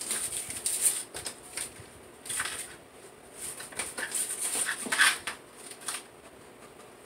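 A pet dog whining in several short, irregular bursts.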